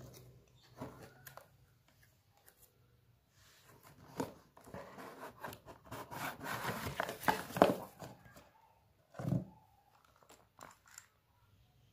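Cardboard box and headphones being handled: scraping and rustling as the over-ear headphones are pulled out of their box, with scattered clicks. The rustling is loudest in the middle, and a single dull thump follows.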